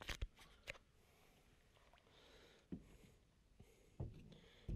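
Mostly quiet, with light clicks and knocks from fishing gear being handled in a small boat: a few clicks in the first second, then single knocks a little past halfway, about four seconds in and near the end.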